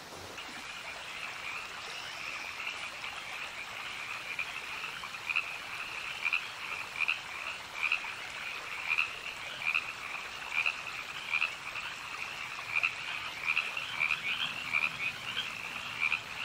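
A chorus of frogs calling, many overlapping croaks, with louder single calls standing out about once a second from around five seconds in.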